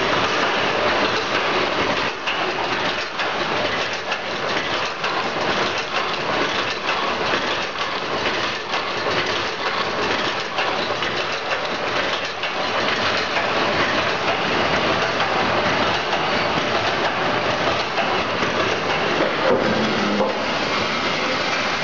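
Automatic wire mesh fence panel welding machine running: a continuous clatter of rapid clicks and knocks over steady machine noise.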